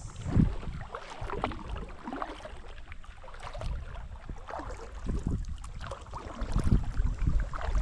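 Kayak on the water: irregular splashing and low knocks against the hull.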